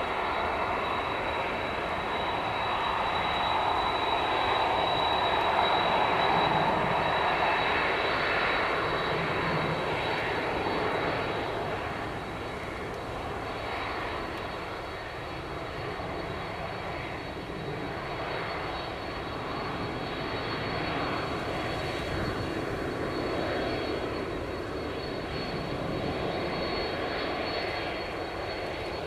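Boeing 747-400F freighter's four jet engines running at taxi power: a steady rumble with a high whine over it, swelling a few seconds in and easing off after about ten seconds.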